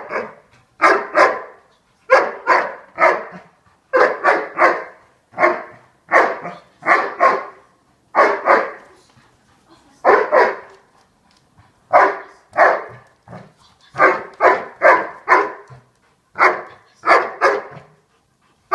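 Doberman barking in quick runs of two to four barks, over and over: the dog 'talking to the ball' while it holds position, barking for the ball reward until it is released.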